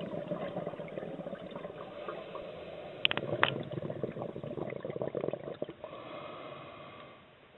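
Underwater sound picked up through a camera's dive housing: a dense bubbling and crackling of water, with a few sharp clicks about three seconds in, fading out near the end.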